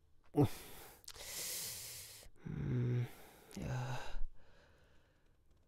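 A man breathing out heavily in a long sigh, followed by two short, low wordless hums.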